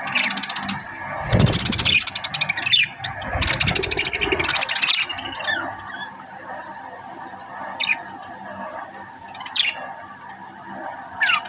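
Budgerigar chattering: dense, raspy warbling for about the first half, then a few short, falling chirps spaced a second or two apart.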